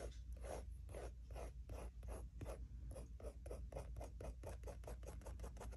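A pen drawing short hatching strokes over dried gouache on journal paper, about three strokes a second at first, quickening in the second half.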